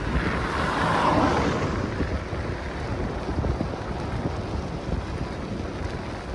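Road bike tyres rolling on asphalt, a steady rushing hum mixed with wind buffeting the microphone, a little louder about a second in.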